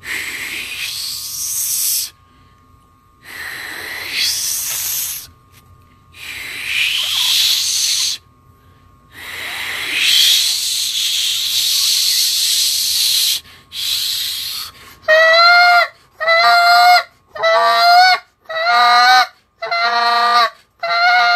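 Air forced hard through the teeth with no call, four long hisses that each rise in pitch as the tongue curls up from the buzz position toward the tighter train position, raising the air pressure. Then a goose call blown in a quick, even run of about seven short honking notes, roughly one a second.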